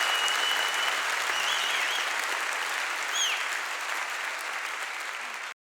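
Audience applause at the end of a live song recording, fading a little, then cutting off abruptly about five and a half seconds in.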